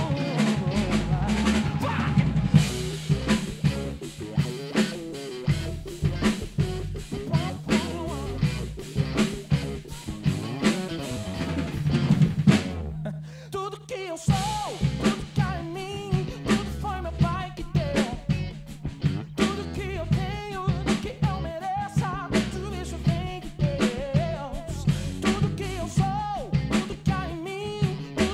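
Acoustic drum kit played with sticks along with a recorded song with singing: kick, snare and cymbals keep a steady beat. About 13 seconds in the music briefly thins out, then the groove comes back in.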